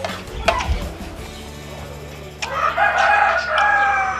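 A rooster crowing once: one long call of almost two seconds, starting a little past halfway, and the loudest sound here. Near the start, a spoon clinks against a plate a couple of times.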